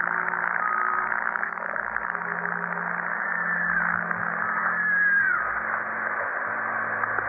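Two-way radio static: a steady hiss on an open channel between transmissions, with a couple of faint wavering tones in it.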